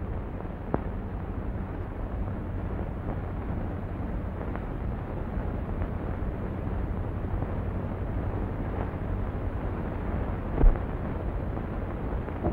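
Steady hiss and low rumble of an old optical film soundtrack, with a faint click near the start and a single thud about ten and a half seconds in.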